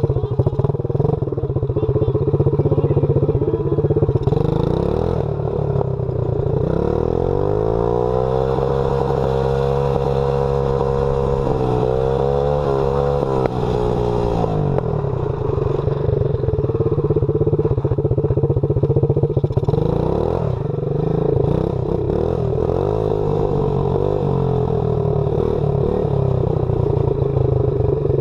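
Small dirt bike's engine running as it is ridden over a gravel road. About seven seconds in it revs up and holds high, then drops back to a lower speed about halfway through.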